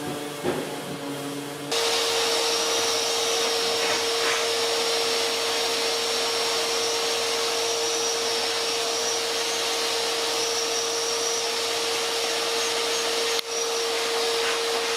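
A steady electric machine whirring with a constant whine. It starts abruptly about two seconds in and drops out for an instant near the end.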